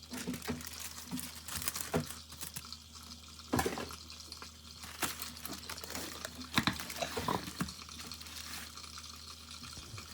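Soft rustling and wet handling of thin warqa pastry sheets, with a few sharp knocks of a pan scattered through, as the pastilla is turned from one pan into another.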